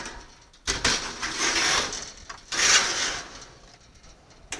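A rack-mounted piece of equipment sliding along metal cabinet mounting rails: two long scraping slides, then a single sharp click near the end.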